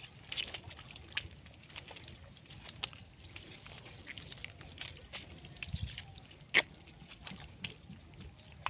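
Water sloshing and splashing irregularly as a person wades waist-deep, pushing a bamboo-framed push net through a muddy creek. There is one louder sudden sound about two-thirds of the way in.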